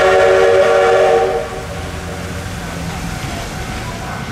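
A train horn sounds a steady multi-note chord, cutting off about a second in, followed by the low rumble of a locomotive running past.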